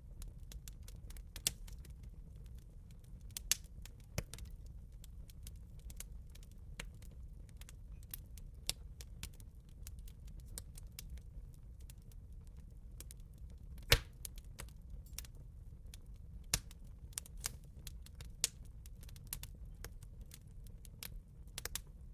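Wood campfire crackling: irregular sharp pops and snaps over a low steady rumble of the flames, with one much louder pop a little past the middle.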